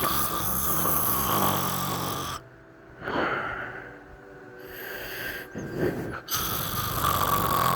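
A boy snoring loudly with his mouth open: long, rasping breaths that repeat with short pauses between them, the loudest at the start and near the end.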